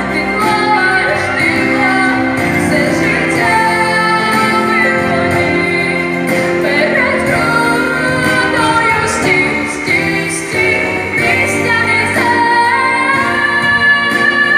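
A young woman singing a pop song solo into a microphone over instrumental accompaniment with a steady beat.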